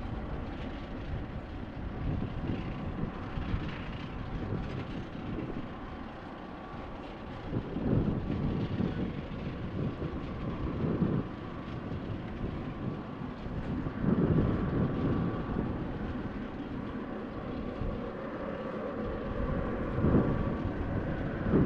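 Jet airliner engines running steadily with a faint high whine, while gusts of wind buffet the microphone several times.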